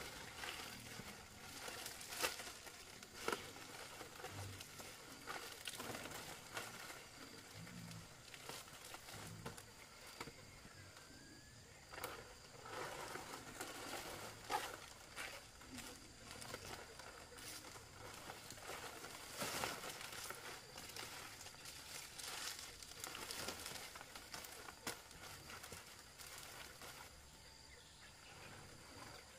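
Fan palm leaves rustling and crinkling as they are handled and laid over a bamboo roof frame, in irregular rustles with a few sharper cracks.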